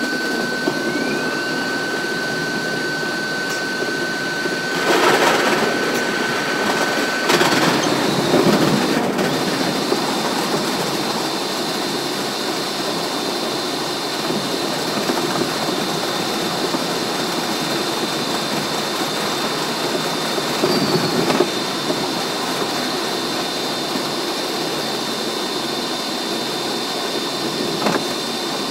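R62A subway train running on the track: a steady rush of rail and running noise with a thin steady whine that steps up in pitch about seven seconds in. A few louder surges come and go, around five, eight and twenty-one seconds.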